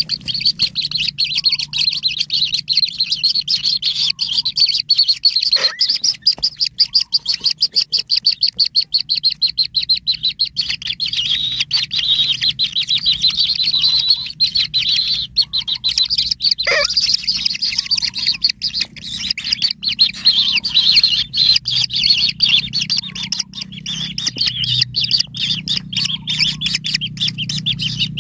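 White-throated kingfisher nestlings begging for food: a dense, continuous run of rapid, high-pitched chirps, with two brief falling squeaks around six and seventeen seconds in.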